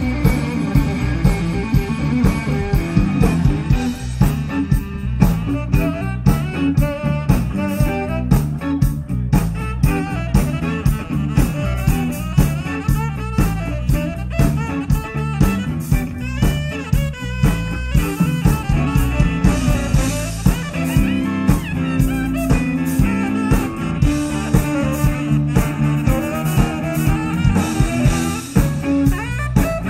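Live blues band playing: guitar lines over a steady drum-kit beat.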